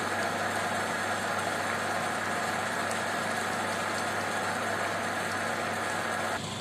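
Soy-vinegar adobo sauce boiling vigorously in a pot, a steady dense bubbling and crackling, over a low steady hum. It cuts off near the end.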